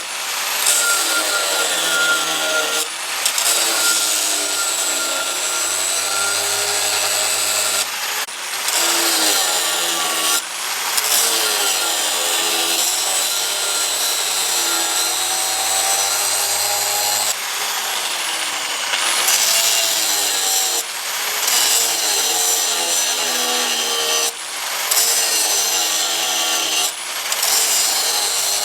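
Power grinder grinding the steel of a leaf-spring knife blade in repeated passes, each a few seconds long. The motor's whine sags under load and picks up again as the tool is briefly lifted off the metal.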